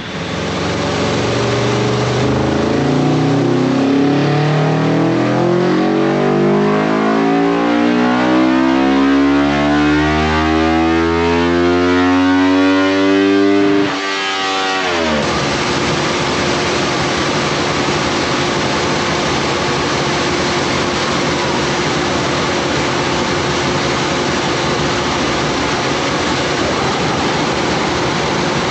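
Kawasaki Ninja 400 parallel-twin engine on a motorcycle dyno making a full-throttle pull: its pitch rises steadily for about fourteen seconds, then the throttle shuts and the revs fall away fast. A steady hum continues after that.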